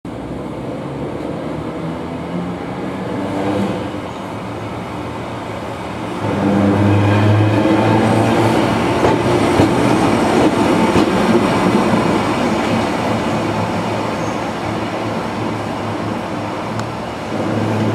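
Chichibu Railway Deki 201, an ED-type electric locomotive, moving slowly at close range: a steady hum that grows louder as it comes past about six seconds in, with scattered clicks from the wheels on the rails.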